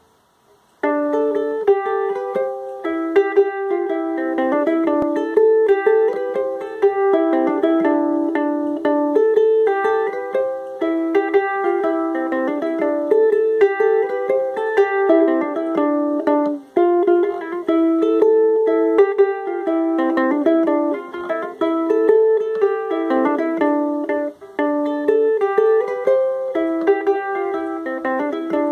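Gretsch resonator ukulele fingerpicked with thumb and index finger, playing an Irish jig melody in plucked single notes; the playing starts about a second in.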